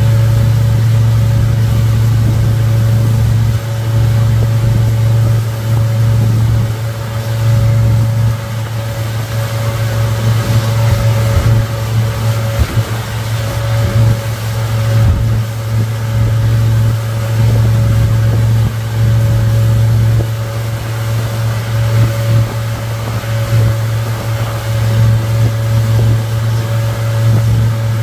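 Suzuki 150 hp outboard motor running steadily at speed while towing, a constant low hum, over the rushing of wake water and wind.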